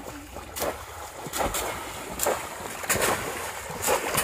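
Bamboo polo fish traps plunged again and again into shallow floodwater by wading boys, about five sharp splashes roughly a second apart over a steady wash of sloshing water.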